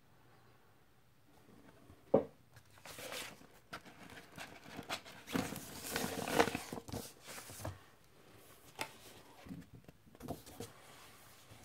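A vinyl LP and its inner sleeve being handled, with uneven rustling and sliding of the sleeve and a sharp tap about two seconds in. The noise is busiest around the middle.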